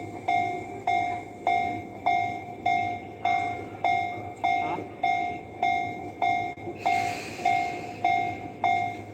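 Japanese railroad crossing warning bell ringing, an electronic ding repeating steadily just under twice a second. About seven seconds in a rushing hiss joins it.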